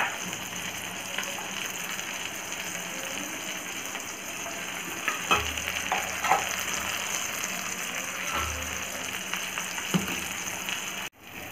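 Oil sizzling steadily under a whole spice-coated fish shallow-frying in a pan, with a few louder pops about halfway through. The sound drops out briefly near the end.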